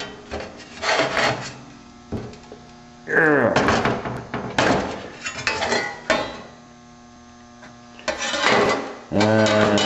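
Steady electrical mains hum under several short bursts of scraping, clattering noise.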